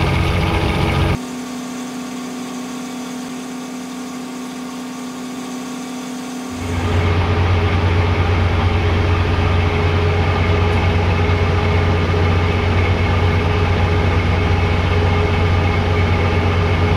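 A fishing boat's engine running steadily with a deep, even hum. About a second in it drops quieter and changes tone, then comes back louder at about seven seconds.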